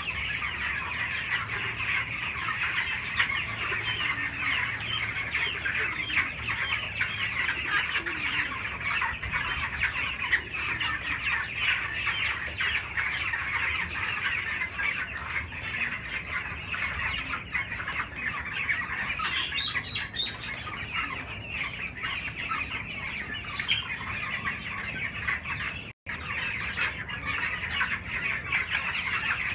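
A large flock of young broiler chicks peeping continuously, many calls overlapping into a dense chatter, with a momentary break about three-quarters of the way through.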